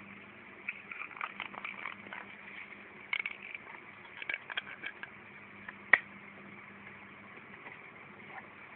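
Scattered light clicks and crackles of handling, with one sharp click about six seconds in, over a steady low hum.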